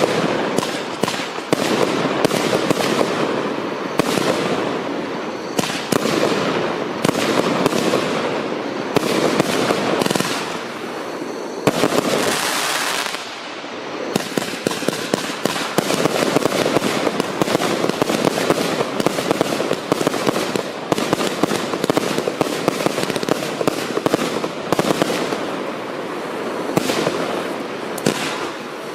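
A multi-shot consumer firework barrage cake firing a dense, continuous run of shots and crackle, easing briefly about thirteen seconds in before picking up again.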